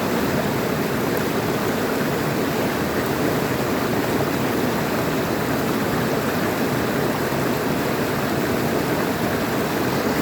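Water running steadily over stones, a continuous even rush with no breaks.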